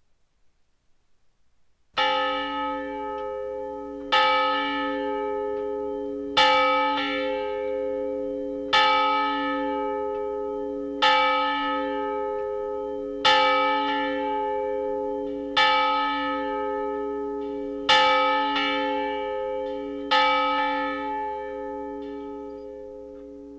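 A single church bell tolling, struck nine times at an even pace of about one stroke every two and a third seconds, each stroke ringing on long into the next. It starts about two seconds in, and the last stroke fades away near the end.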